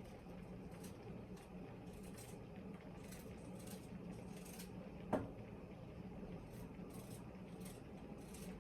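Kitchen knife working through a vegetable in soft, short scraping strokes, about one or two a second, with one sharper knock about five seconds in, over a low steady hum.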